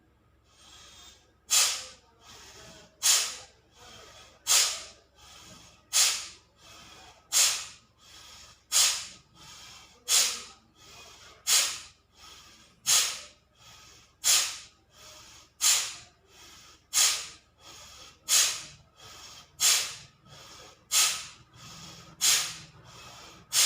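Pranayama breathing exercise: a person forcing sharp, hissing breaths out through the nose about every second and a half, each followed by a softer breath in, steady and repeated some seventeen times.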